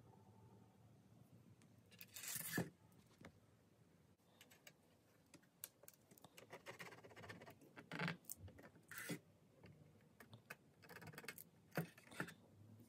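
Faint, irregular handling noises: a short scraping sound about two and a half seconds in, then scattered light clicks and scrapes, as of small parts being worked by hand.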